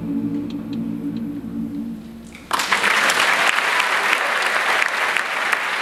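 A choir holds its final chord, which fades away over about two seconds; then, about two and a half seconds in, the audience bursts into applause that carries on steadily.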